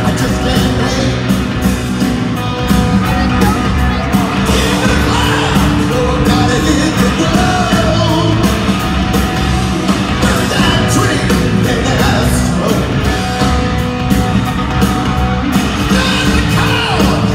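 Live hard rock band playing loud through an arena PA, with electric guitars, bass and drums, singing and yells over the top.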